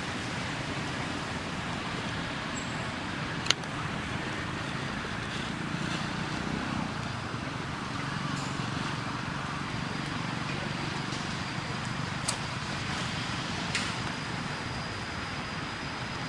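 Steady hum of road traffic with a few sharp clicks.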